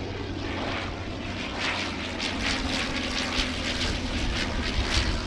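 The piston engine of a First World War biplane flying past, its pitch falling as it goes by.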